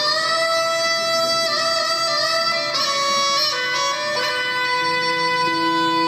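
Live instrumental music: a wooden flute plays a slow melody of long held notes that bend between pitches, with piano accompaniment.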